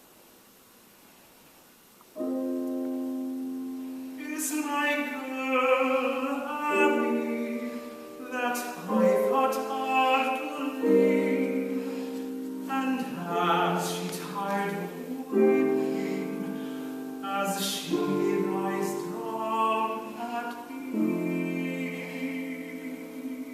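Classical art song: a trained singer with vibrato, accompanied by piano. The piano comes in with a sudden chord about two seconds in, after a short hush, and the voice enters a couple of seconds later.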